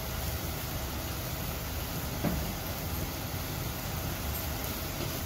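Minced mutton and onions frying in oil in a pan, a steady sizzle over a low, even rumble.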